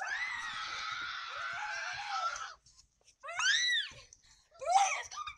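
Children screaming with excitement: one long, high, held scream that stops about two and a half seconds in, followed by two shorter screams that rise and fall in pitch.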